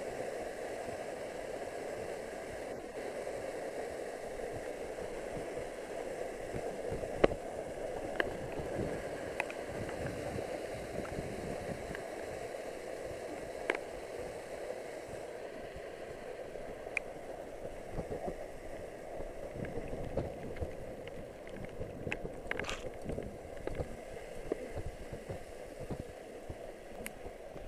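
Waterfall water rushing steadily close by, with a few sharp clicks and knocks over it.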